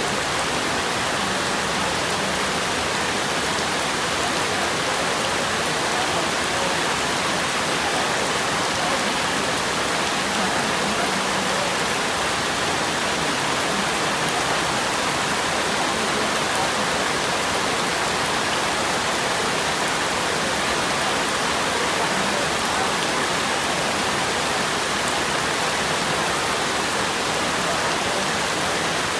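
Steady, even rush of water noise that does not change throughout.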